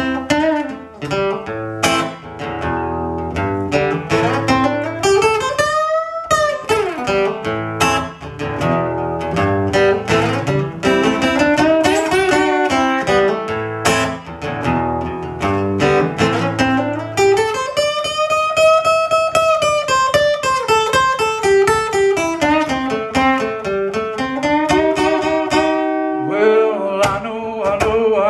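Acoustic-electric guitar playing an instrumental break in a slow blues-soul song, with runs of picked notes. Some notes slide up and back down in pitch, most clearly about two-thirds of the way through.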